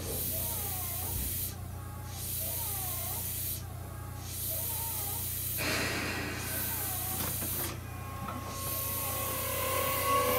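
A Tobu 9050 series electric train standing still, with a steady low hum from its equipment and a hiss that cuts out every two seconds or so. About eight seconds in, the whine of its GTO-VVVF traction inverter starts as the train begins to move off.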